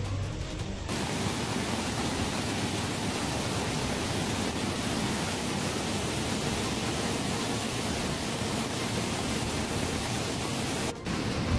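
Muddy floodwater rushing and pouring over a roadside wall in a steady, dense rush of water. It breaks off for a moment near the end.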